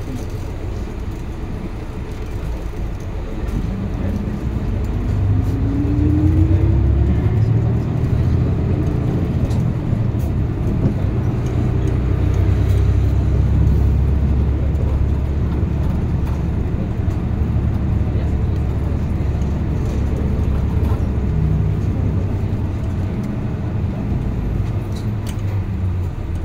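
Route bus heard from inside the cabin, pulling away and gathering speed with a rising whine from the drivetrain a few seconds in. Its engine and road rumble then run steadily and heavily at speed, easing somewhat near the end.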